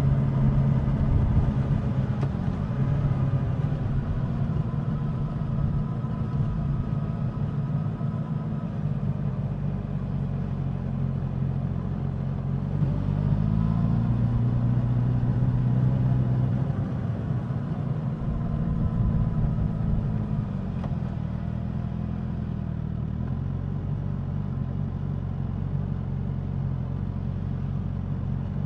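Suzuki GSX-S1000's inline-four engine and exhaust while riding: steady running, then the engine pitch rises about halfway through as it accelerates, holds for several seconds, and drops back as the throttle is eased.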